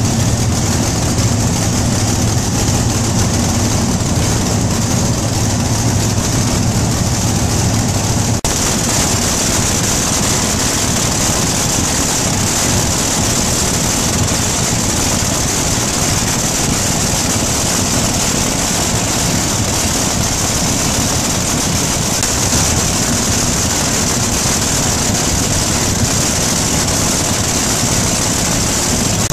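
Pulling tractor's several supercharged, methanol-fuelled Ford V8 engines running steadily together at a loud idle. About eight seconds in, the sound changes abruptly: the deep drone gives way to a harsher, brighter roar.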